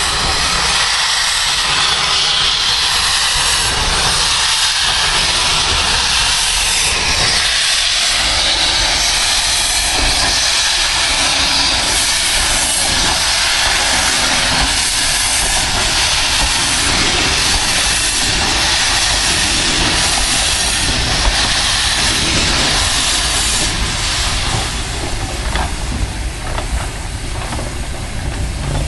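Steam locomotive blowing steam out of its open cylinder drain cocks, a loud, steady hiss over a low rumble. The hiss weakens about four-fifths of the way through.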